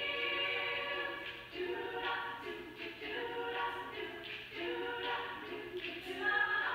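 A group of voices singing together in harmony, heard off an old VHS tape recorded on a phone, so it sounds dull with no top end.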